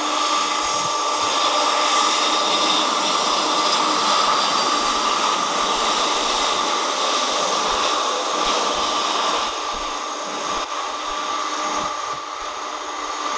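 Jet engine noise from a Frontier Airlines Airbus A320-family airliner coming in low to land and touching down, a steady rush with a constant whine on top. It is loudest in the first half and dies away over the last few seconds as the jet rolls out down the runway.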